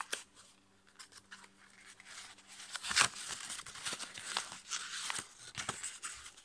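A sheet of copy paper being folded and creased by hand. After a couple of quiet seconds with a few small clicks, dense crinkling and crackling of the paper starts about halfway through, loudest just after it begins.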